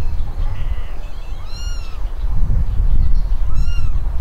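Kitten mewing twice, two short high-pitched mews about two seconds apart, over a steady low rumble.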